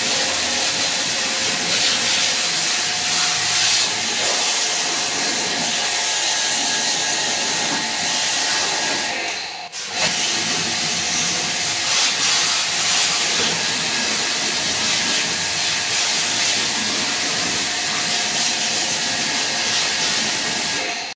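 Steady hissing spray of a pressure-washer water jet cleaning an air conditioner's outdoor unit. It cuts out briefly about ten seconds in and then starts again.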